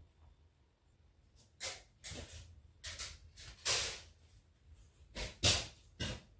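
A run of short handling noises, rustles and light knocks of objects being moved about, about seven in six seconds, the longest one near the middle.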